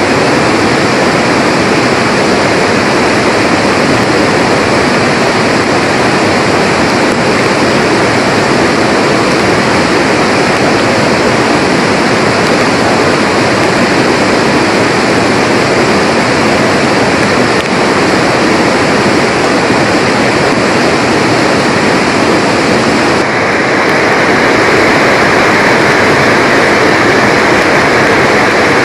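A rain-swollen mountain river rushing loudly in flood, a steady dense noise of fast water. About 23 seconds in it cuts to a slightly deeper, less hissy rush.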